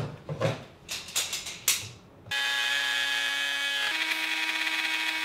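A few knocks and clatters of wood being handled. About two seconds in, an electric router fitted with a straight pattern bit switches on and runs with a steady whine, which steps up slightly in pitch about a second and a half later.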